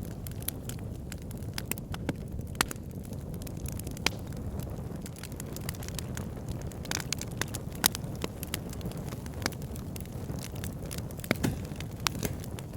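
Campfire burning: a steady low rumble of flames with sharp, irregular crackles and pops from the burning wood.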